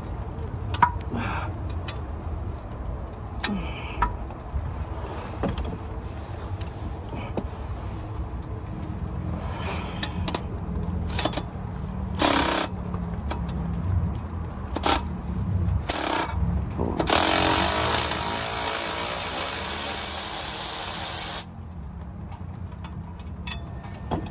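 A power tool working on the torque converter bolts through the flexplate of a 4L60E transmission. It gives several short bursts, then one run of about four seconds that cuts off suddenly, with scattered metal clinks over a low steady rumble.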